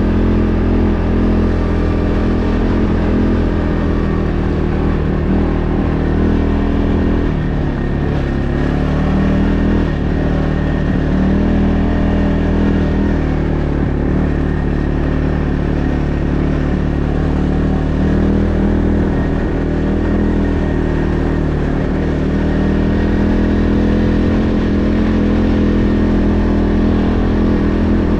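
A motor vehicle engine running steadily while under way. Its pitch dips about eight seconds in, then rises again.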